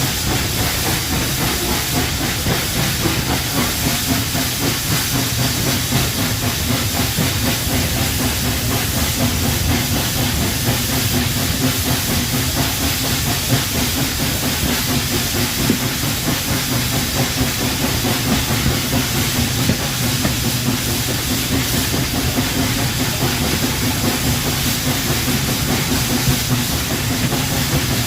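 Steam locomotive at a standstill, giving off a loud, steady hiss of escaping steam, with a low rumble beneath it.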